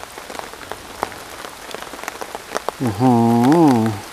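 Steady rain falling, with single drops ticking close by. About three seconds in, a man's voice sounds a drawn-out syllable for about a second.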